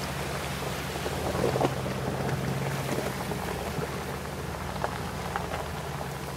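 Jeep Grand Cherokee ZJ's 5.9-litre V8 running steadily at low speed while wading through floodwater, with water splashing and spattering against the vehicle.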